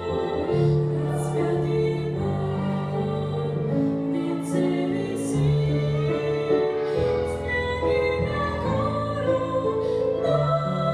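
Voices singing a Russian Christian song with instrumental accompaniment, in long held notes that change every second or two.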